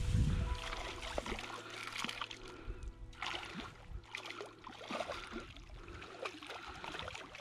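A hooked trout splashing and thrashing at the water's surface as it is played in toward a landing net, with short sharp splashes, over background music.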